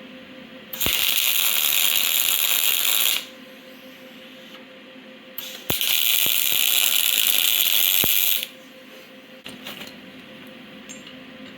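A pneumatic air tool, of the kind used to run nuts off a puller, running in two bursts of about two and a half seconds each, the second starting about three seconds after the first ends.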